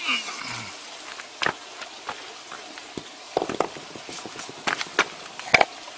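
A short vocal grunt falling in pitch at the start, then scattered light knocks, scuffs and rustles, about half a dozen, as a person moves about and handles stones among garden grass.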